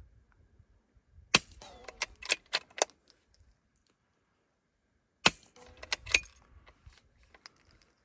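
Christensen Arms Ranger 22 rifle firing subsonic CCI Quiet .22 LR through a Little Spoon suppressor: insanely quiet, sharp cracks with clicks of the action. They come in two quick clusters, the first about a second in and the second about four seconds later.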